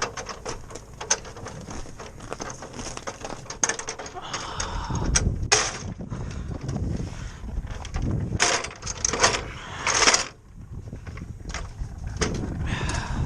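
Irregular knocks, clatters and scraping as a ladder is moved, with a low rumble coming in about a third of the way through.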